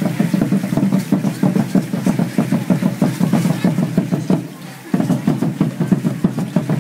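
Drumming for an Aztec dance, beating a fast, steady rhythm. The drumming drops away for about half a second a little past the middle, then starts again.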